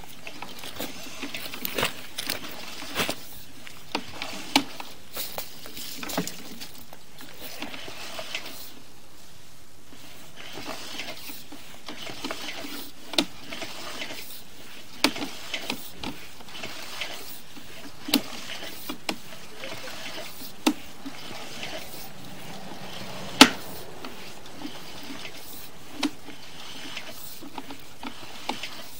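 Sewer inspection camera's push cable being pulled back out of the drain line: irregular clicks and knocks over a steady hiss.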